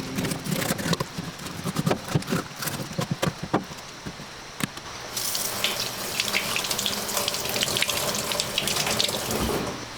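Water splashing, with knocks and clatter in the first half, then a steady rush of running water from about halfway that cuts off just before the end.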